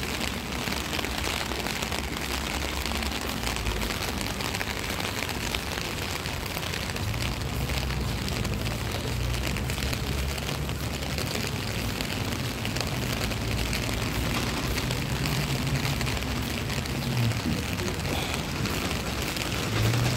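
Steady rain falling on wet paving, an even hiss, with a low rumble underneath.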